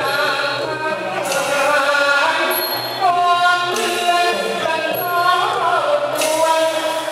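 A Thai singer holding long, bending melodic notes over instrumental accompaniment, with bright percussion strokes every second or two.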